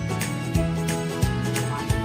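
Background music with a steady beat and held notes, with a guitar-like sound.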